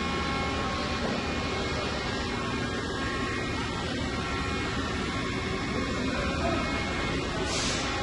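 Hitachi Seiki CNC lathe running: a steady machine hum with several steady whining tones over it, and a short hiss near the end.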